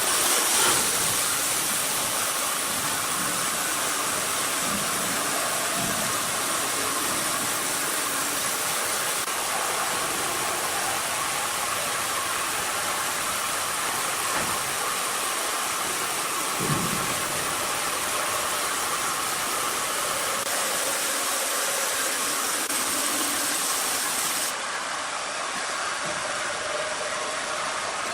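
Sawmill machinery running with a steady, even noise, with one short knock about 17 seconds in.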